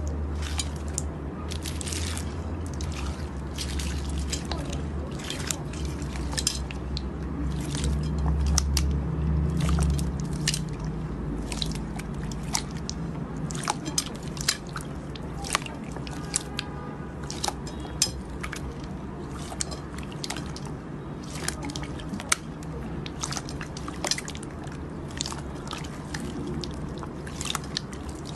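Slime being squished and pressed, giving irregular, crisp wet clicks and small pops, one to three a second.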